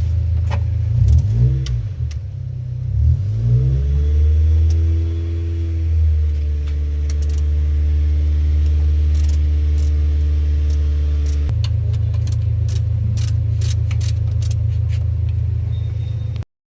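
Car engine running, its pitch rising over a couple of seconds, held steady for several seconds, then dropping back to a lower steady run. Light clicks come over the top near the end.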